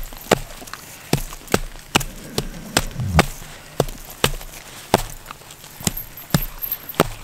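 A husky gnawing a frozen block of chicken-and-beef dog food, its teeth cracking on the frozen meat in sharp, irregular snaps about every half second.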